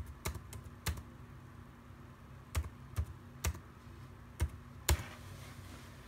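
Computer keyboard keys pressed one at a time as numbers are typed into spreadsheet cells: a few quick clicks in the first second, then single key presses about every half second from about two and a half seconds in, the last near five seconds.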